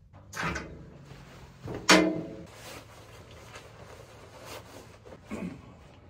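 A camping hammock being taken down and packed: a sharp knock about half a second in and a louder knock with a brief ring about two seconds in as it is unhooked from the pavilion beam, then fabric rustling with small ticks as it is stuffed into its sack, and one more knock near the end.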